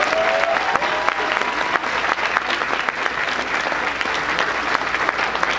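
Audience applauding, a steady dense patter of many hands clapping.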